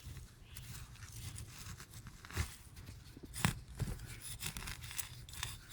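Garden soil being dug and sifted for potatoes: irregular scraping and rustling of dirt with a few sharp knocks.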